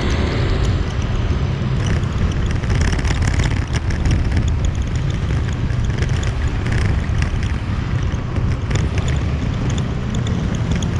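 Steady low rumble of a motorbike ride: engine and road noise with wind buffeting the microphone.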